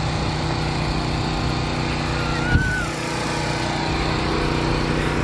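A small motor running steadily, giving an even drone, with a brief high squeak and a light knock about halfway through.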